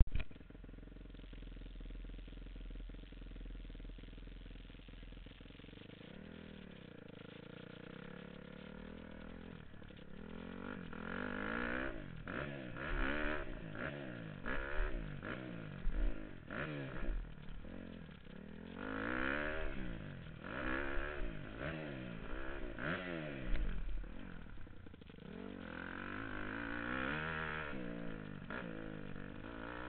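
Dirt bike engine: running low and steady for about the first ten seconds, then revving up and down over and over, the pitch rising and falling every second or two as the bike is ridden through a section of jumps.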